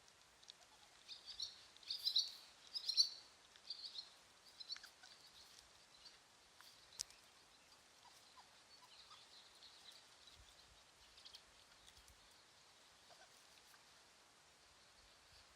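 Birds chirping: a flurry of quick, high chirps in the first few seconds, then scattered fainter chirps over a low background hiss.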